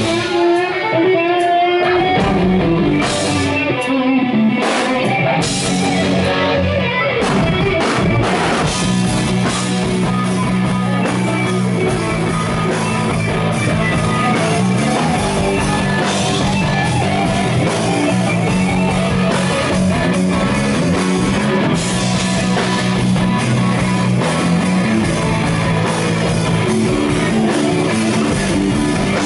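Live rock band playing an instrumental passage: electric guitar leading over a drum kit. The guitar's notes waver and slide in the first several seconds, then settle over a steady low line.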